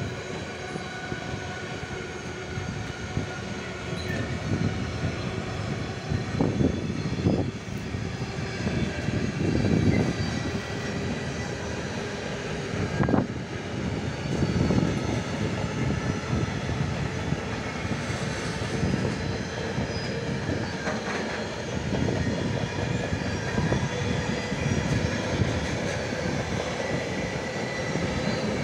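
Freight train of gas tank wagons rolling past: a steady rumble of steel wheels on rail, broken by a few sharp knocks from the wheels, with a faint steady whine above it.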